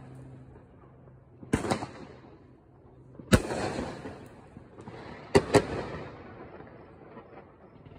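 Aerial fireworks bursting overhead in sharp bangs: one about a second and a half in, another about three and a half seconds in, then a quick pair just past five seconds. Each bang trails off over a second or so.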